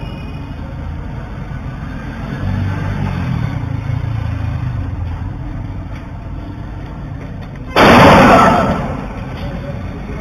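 Street traffic noise with a vehicle engine running, then about eight seconds in a single very loud gunshot that rings on and dies away over about a second.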